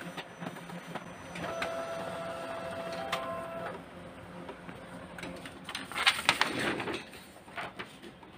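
Fuji DocuCentre SC2022 multifunction printer printing and feeding a page out into the output tray. Its mechanism runs with a steady whine for about two seconds, with clicks, and there is a louder clatter about six seconds in.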